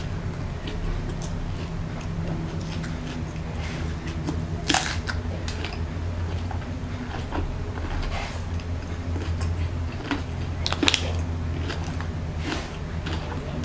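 Close-up eating of crunchy fried spring rolls (lumpiang shanghai): scattered crisp bites and chewing, with two louder crunches about five seconds in and near eleven seconds, over a steady low hum.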